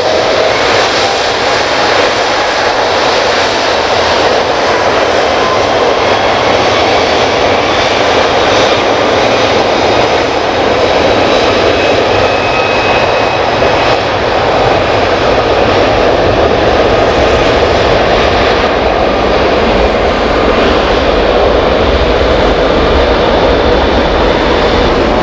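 Rolls-Royce Trent 700 turbofans of an Airbus A330-200 freighter running at high power as it rolls down the runway. The sound is a loud, steady jet rush with a faint high fan whine, its pitch rising slightly at the start.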